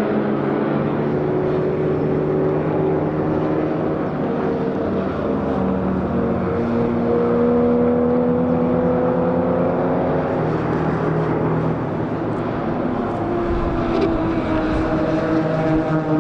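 Classic racing car engines running hard, several at once, their notes slowly rising and falling and overlapping.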